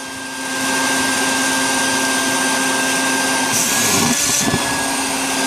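Shop vac running with a steady hum. A little over three and a half seconds in comes a brief hissing slurp as an opened scallop is held to the hose nozzle and its guts are sucked out.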